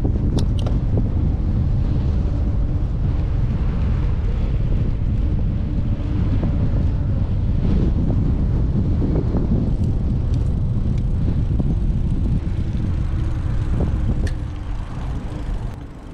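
Heavy wind noise buffeting the microphone of a camera riding on a moving bicycle, a steady low rumble that eases over the last couple of seconds.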